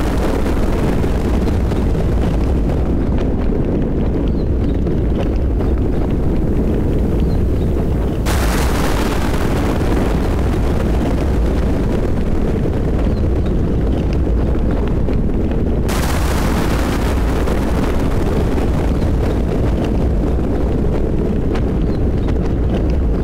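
Thunderstorm with rain: a continuous deep rumble of thunder under steady rain noise, with a sudden sharp crack of thunder about a third of the way in and another about two-thirds in, each one's hiss fading away over several seconds.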